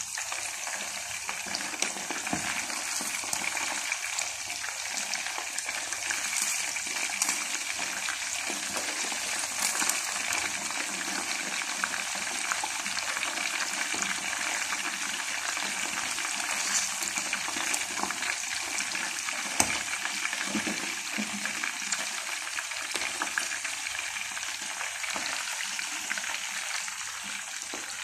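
Chicken pieces deep-frying in a pot of hot oil: a steady, dense sizzle with a few sharp clicks and crackles.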